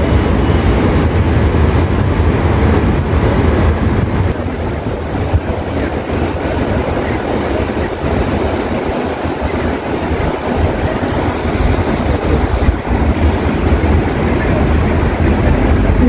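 Steady wash of outdoor noise: water running in a fountain pool and city traffic, with wind buffeting the microphone.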